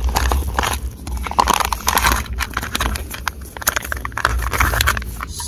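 Irregular crinkling and small clicks from handling a foil backpacking-meal pouch, over a steady low rumble.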